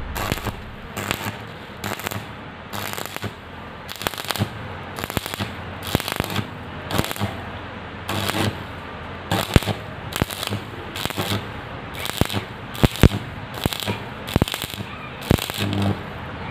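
Stick (arc) welding: the electrode's arc burning along the corner joint of square iron pipe, a steady crackle broken by sharp pops several times a second.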